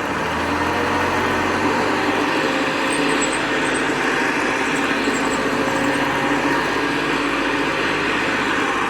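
Hoover Convertible Model 69 upright vacuum cleaner running steadily at full speed, just after being switched on, in its unrestored, as-found state.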